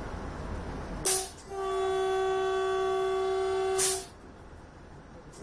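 Vande Bharat Express horn sounding one steady chord-like blast of about two and a half seconds, heard from inside the driver's cab. The train's running noise comes before it, and there is a sharp click where the horn starts and where it stops.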